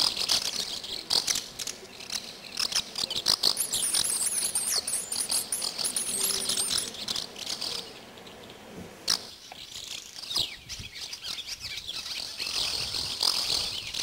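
Barn swallows twittering with many quick, high chirps, with a run of very high, wavering trills from about three and a half to seven seconds in.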